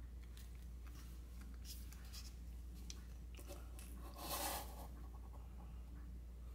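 Quiet room with a steady low hum and faint rustling and ticking from hands handling a cat and its fluid line. One brief, louder rustling noise comes about four seconds in.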